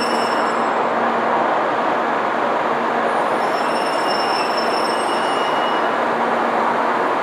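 Shinkansen bullet train at a station platform: a steady rushing noise, with faint high squealing tones that come and go.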